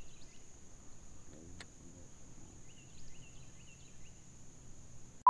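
Insects droning steadily at a high pitch, with a single sharp click about a second and a half in.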